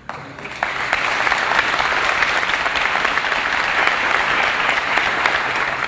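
Audience applauding, swelling within the first second and then holding steady before stopping near the end.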